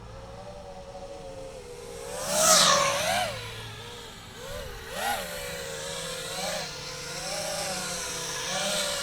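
5-inch FPV quadcopter's motors and propellers whining, the pitch rising and falling with the throttle. There is a loud throttle punch about two and a half seconds in, then smaller surges.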